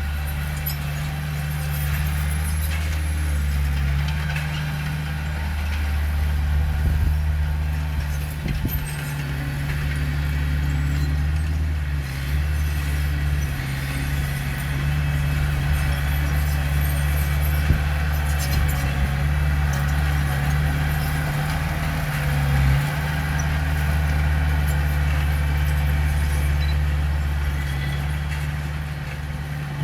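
Heavy earthmoving machine's diesel engine running steadily under work, with small shifts in engine load.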